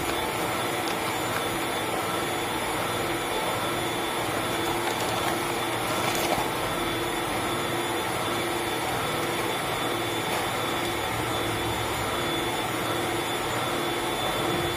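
Steady whir of a small electric motor running evenly, with a faint steady hum over it.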